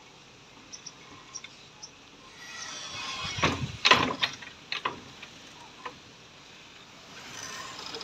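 Wire birdcage bars rattling and clicking as an Indian ringneck parakeet climbs and bites at them. A few faint clicks come at first, then a loud burst of rattling around the middle, then scattered clicks.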